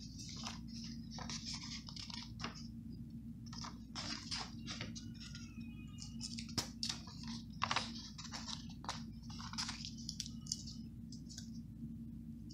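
Hands working at a paper planner: short, scratchy rustles and light clicks of paper and stickers being handled, coming every half second or so, over a steady low hum.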